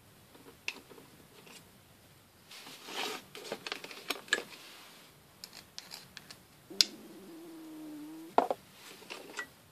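Small steel screwdriver bits clicking and rattling against a plastic bit case and the screwdriver's bit holder as they are taken out and fitted, with light plastic knocks; a busy run of clicks in the first half and a sharp click about two-thirds in. Near the end a short low steady hum sounds for about a second and a half, cut off by a knock.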